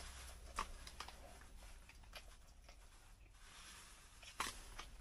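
Quiet eating sounds: a few soft clicks and scrapes of chopsticks against a metal lunch box and a cooking pot, the sharpest about half a second in and about four and a half seconds in.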